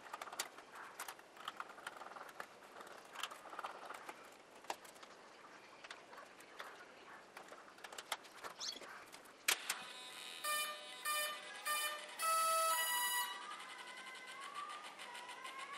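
Clicks and rustles of hands handling plugs and the model's foam airframe, then a sharp click about nine seconds in as the flight battery is connected. The brushless motors' electronic speed controllers then give their power-up beeps, three short beeps and one longer one, followed by a fainter tone that wavers up and down in pitch.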